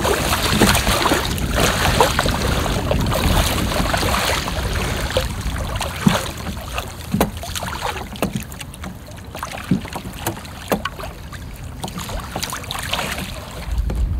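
Wind buffeting the microphone over choppy water lapping and slapping against a kayak's hull, with a few sharp knocks and splashes scattered through it. The wind noise is heavier in the first half and eases after the middle.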